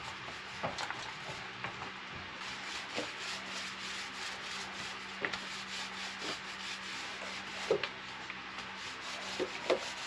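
Paint roller rolling paint onto a boat's wooden hull frames: a steady scratchy rubbing with small clicks and ticks as it passes over rough wood.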